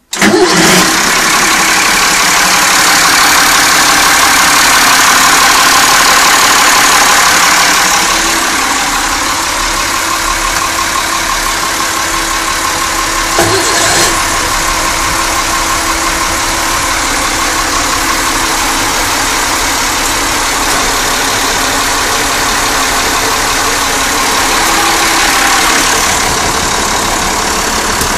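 Twin Perkins T6.354 six-cylinder turbo diesel marine engines running loud and steady.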